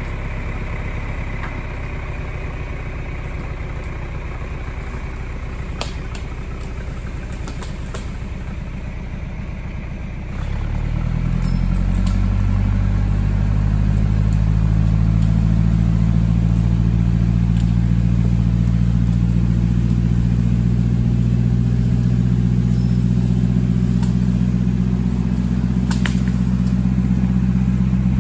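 John Deere 3020's four-cylinder diesel engine running low, then revving up about ten seconds in and holding a steady, louder pull under load as the tractor drags a fallen tree on a chain. A few light clatters sound over it.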